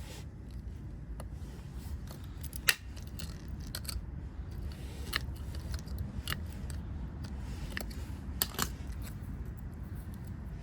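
Hand cutting tool snipping and trimming coaxial cable: scattered sharp snips and clicks, the loudest about three seconds in and a pair near the end, over a steady low hum.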